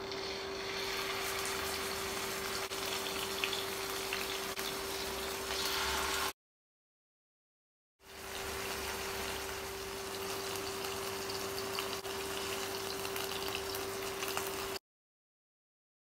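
Marinated chicken pieces sizzling and crackling in hot oil in a non-stick frying pan, over a steady hum. The sound cuts out to silence twice, for about two seconds each time.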